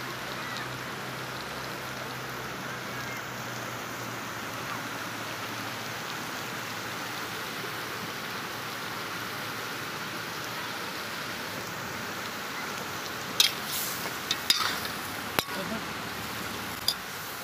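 Chicken pieces sizzling steadily in a hot aluminium wok over a wood fire. Near the end a metal spoon scrapes and clinks against the wok a few times as the chicken is stirred.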